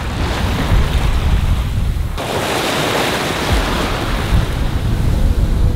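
Wind buffeting the microphone over the rush of sea water around a sailing yacht under way. About two seconds in, the sound changes abruptly: the low rumble drops away and a brighter hiss of water takes over.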